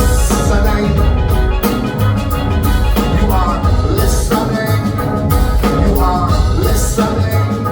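Live band playing an instrumental passage of a song: drums and a heavy bass line under repeated bright pitched notes with short slides.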